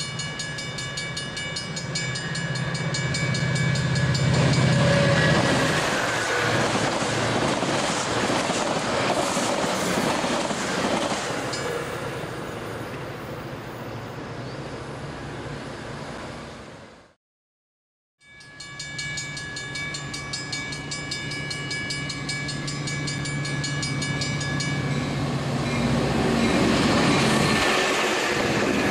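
Grade-crossing warning bells ringing over the rumble of a commuter train passing on the main line. The sound drops out for about a second just past the middle. Then the bells ring again, and a Metra train of stainless-steel bilevel cars rolls by close up near the end.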